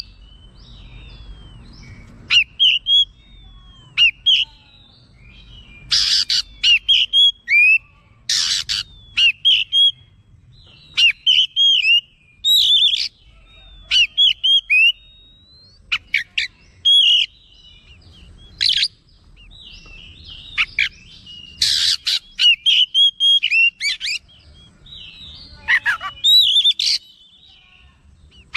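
Oriental magpie-robin singing loudly in short, varied phrases of clear whistled notes that swoop up and down, one phrase after another with brief pauses between. A few short, harsh bursts of noise break in, about six, eight and twenty-two seconds in.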